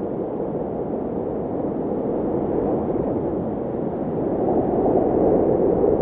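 Snowstorm wind blowing: a steady, low rushing noise that swells near the end.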